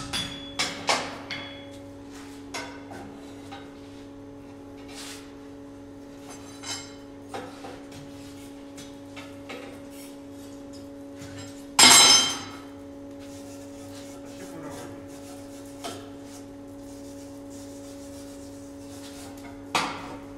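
Hammer blows on hot iron at an anvil, several in quick succession in the first second or so. Then light metal clinks and scrapes on a steel workbench as a hot bar is bent into a scroll, with one loud ringing metal clang about twelve seconds in and another near the end. A steady low hum runs underneath.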